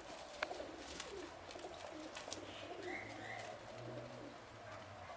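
Doves cooing softly at a feeder, with a few faint clicks.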